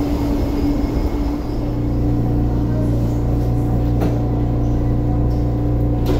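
Steady low hum and rumble of an MTR East Rail Line Metro-Cammell electric train, heard from on board as it moves slowly along the platform.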